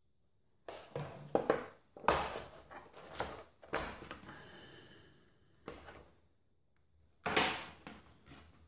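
Hand tools and small hard objects being handled on a work surface: a series of irregular knocks, clicks and scrapes, with the loudest at about two seconds in and near the end.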